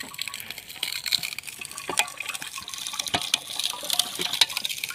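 Sugarcane juice pouring from a cane crusher's tray into a steel bucket in a thin, splashing stream, with frequent sharp clicks and cracks throughout.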